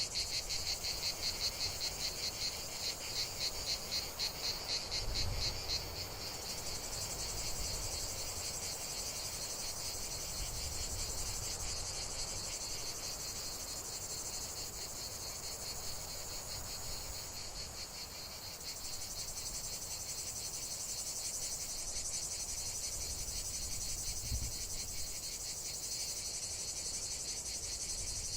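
Crickets trilling in a steady high chorus. A faster, pulsing trill sits over it for the first five seconds or so, then merges into the chorus. A faint low rumble runs underneath.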